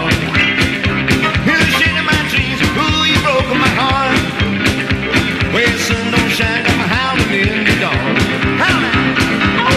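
Rockabilly band recording playing the song at a fast steady beat, with bending lead lines over the rhythm section.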